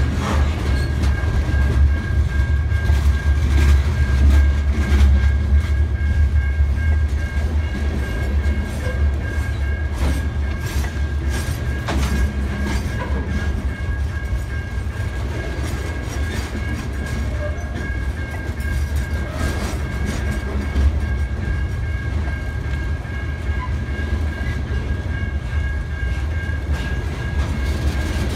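Loaded coal cars of a freight train rolling past close by: a steady heavy rumble of steel wheels on rail, with scattered clicks as the wheels cross rail joints and a faint steady high-pitched ringing.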